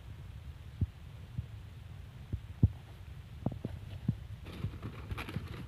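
Small fire of dry leaves and palm flower spikes burning, with scattered low pops over a steady low rumble and a cluster of sharper crackles about four and a half seconds in.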